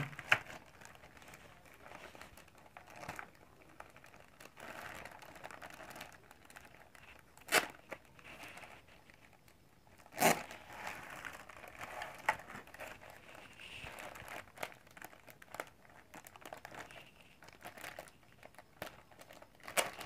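Clear plastic wrap crinkling and rustling as hands peel it off a keyboard, with two sharp clicks about a third of the way in and about halfway through.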